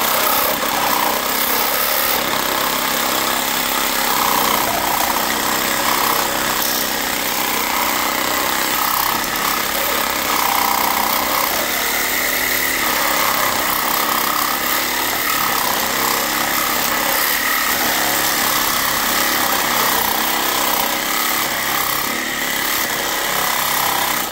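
Reciprocating saw (Sawzall) with a demolition blade cutting through a transformer's paper-insulated copper windings, running steadily and loud, then stopping abruptly.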